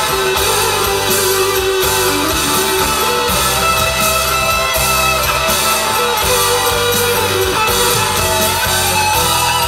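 Live band playing an instrumental break, with a Stratocaster-style electric guitar playing lead over the band's backing and a steady low bass.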